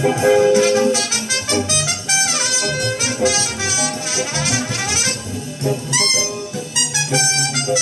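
Small-group jazz recording with horns (saxophone and brass) playing quick melodic runs over a walking bass line, played back on a hi-fi system.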